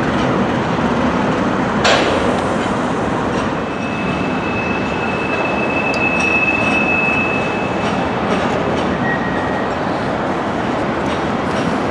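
Covered hopper cars of a Canadian Pacific freight train rolling past close by, a steady rumble of steel wheels on rail with a sharp click about two seconds in. A high thin wheel squeal holds for about four seconds in the middle, and a shorter, lower squeal follows near the end.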